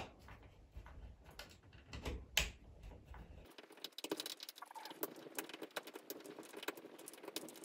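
Light clicks and scrapes of a small terminal screwdriver turning the screws of a ceiling rose's terminals as the old wires are loosened. About halfway through they become a quick, irregular patter of small clicks.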